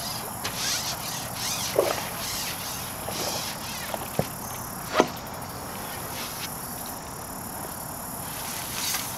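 Evening insect chorus: a steady high hiss with rhythmic pulsing chirps, about two to three a second, that fade after about three seconds. A few short sharp clicks sound over it, the sharpest about five seconds in.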